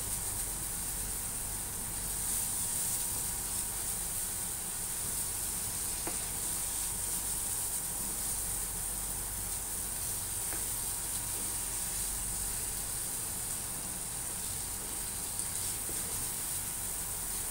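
Corned beef sizzling steadily in a nonstick frying pan as it is stirred with a spatula, frying off its last moisture on its way to crisp.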